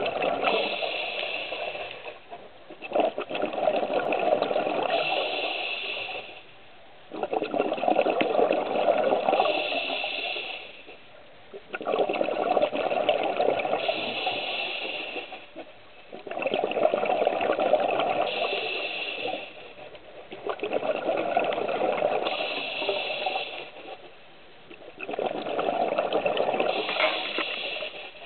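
Scuba diver breathing through a regulator underwater: a rushing hiss and bubble noise with each breath, repeating about every four to five seconds with short quiet gaps between breaths.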